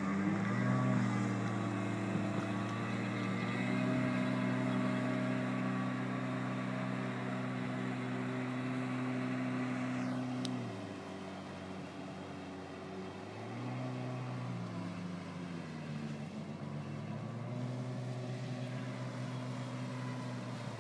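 Watercraft engines running steadily over water and wind noise. Their drone drops in pitch and level about halfway through, then swells back twice.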